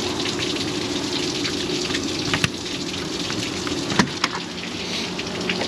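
Water draining from an RV's opened plumbing drains and spattering steadily onto the pavement. Over it come sharp clicks about two and a half and four seconds in, as a key unlocks the compartment door's latch and the door is pulled open.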